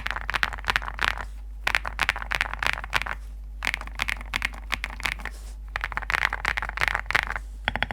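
Typing on a fully foam-filled ZOO65 mechanical keyboard with Graphite Gold switches: quick runs of keystrokes about a second long with short pauses between them, giving a stone-like tapping clack.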